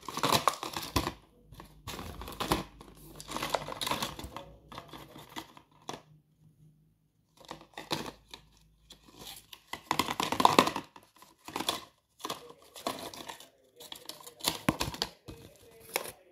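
Cardboard toy box being handled and torn open, making irregular bursts of tearing and crinkling, with a short quiet pause partway through.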